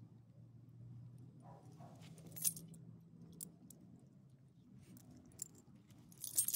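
Metal dog tags and collar hardware jingling as the dogs move and roll on the ground: a short jingle about two and a half seconds in and a louder cluster near the end, over a faint low hum.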